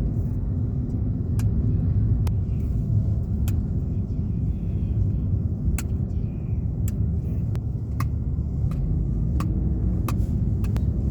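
Steady low rumble of a moving vehicle heard from on board, with sharp clicks and rattles every second or so.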